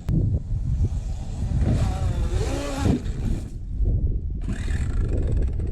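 Traxxas X-Maxx RC truck driving on dirt: its 1100kv Hobbywing brushless motor whines up and down in pitch with the throttle over drivetrain and tyre noise. A sharp click comes right at the start.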